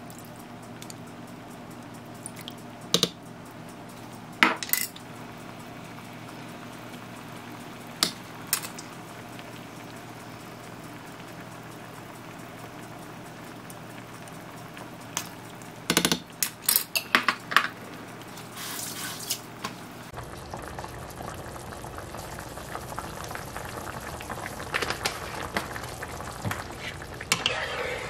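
Broth with pork simmering in a nonstick frying pan, with sharp clinks and taps of a small measuring cup and utensils against the pan several times, a quick cluster of them about two-thirds through. From about twenty seconds in the bubbling sizzle of the sauce grows louder and a plastic spatula scrapes through it near the end.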